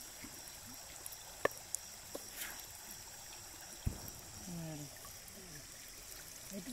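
Water trickling and dripping as small fish are emptied from a fishing net into a metal bucket, with a few light clicks and a single knock about four seconds in.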